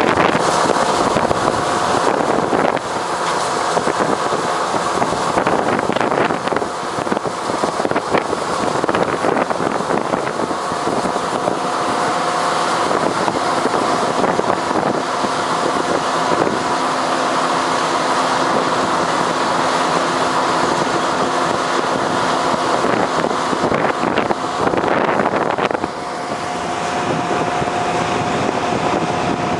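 Harvesting machinery, most likely a combine harvester working corn, running steadily with a constant mechanical drone and a held whine, and wind buffeting the microphone at times.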